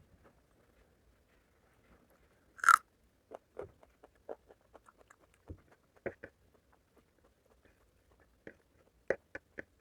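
Close-up eating: one loud crunchy bite about three seconds in, then chewing with short wet mouth clicks and smacks, and two sharper smacks near the end.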